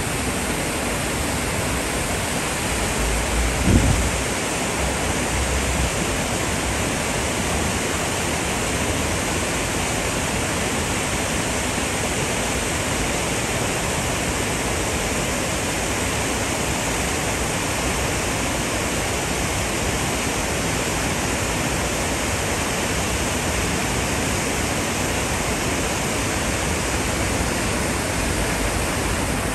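Storm floodwater rushing and churning down a concrete channel in a steady, dense rush of water noise, with a brief low thump about four seconds in.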